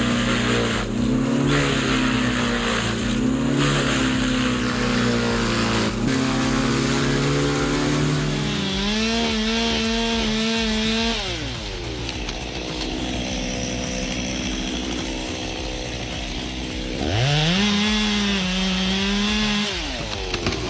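A small engine running steadily, then revving up sharply twice, about eight and seventeen seconds in, holding high for a few seconds each time before dropping back.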